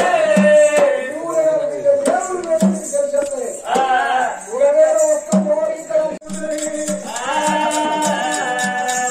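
Oggu Katha folk singing: voices carry a wavering sung melody over a hand drum beating a steady rhythm, with bright jingling percussion throughout.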